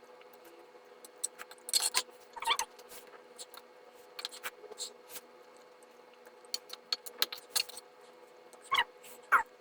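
Close-up mukbang eating of Korean buldak noodles: wet mouth clicks and chewing, with short slurps of noodles about two seconds in and twice near the end.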